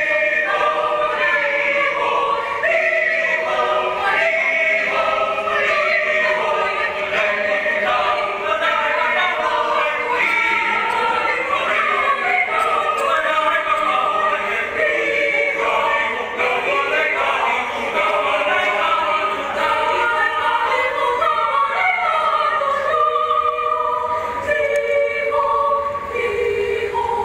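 Mixed choir of men's and women's voices singing a choral song in Cebuano, the parts holding and moving between sustained chords.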